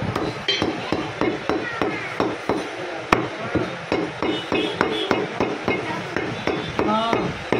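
Butcher's cleaver chopping mutton: a rapid run of sharp chops, about three or four a second.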